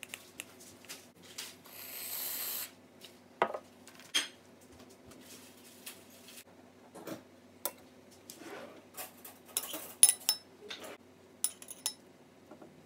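A spoon clinking and scraping against glass bowls and plastic cups as canned mandarin oranges and pineapple are spooned into cups, in scattered short clicks. About two seconds in, an aerosol whipped-cream can hisses for about a second.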